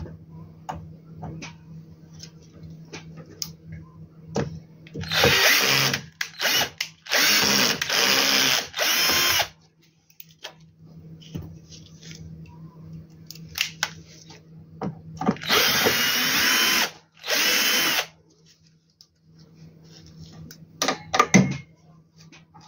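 Power drill-driver running in four short bursts of one to two seconds each, its pitch shifting as it drives screws, with small clicks and handling sounds between the bursts.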